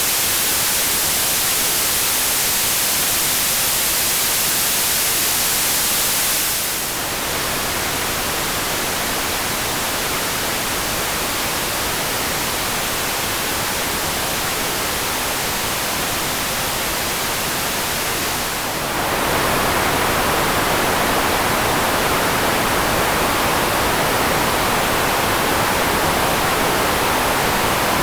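Steady synthetic white noise that changes character twice. It starts unfiltered, a bright, full hiss. About seven seconds in it switches to a softer version with the top end turned down. About nineteen seconds in it switches again to a warmer version, weighted toward the middle with less treble.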